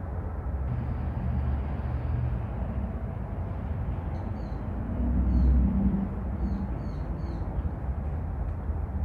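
Wind rumbling and buffeting on the microphone, swelling about halfway through. A few faint bird chirps come in the middle.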